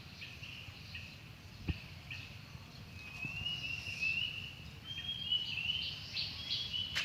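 Small birds chirping in a quick run of short high notes, starting about three seconds in and getting louder, with a single sharp knock before that.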